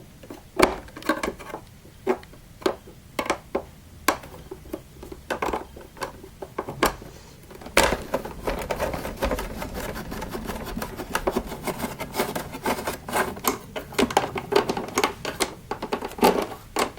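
Torx screwdriver undoing screws in the plastic housing of a Miele vacuum cleaner: a string of clicks, about two a second at first, then coming fast and close together from about eight seconds in.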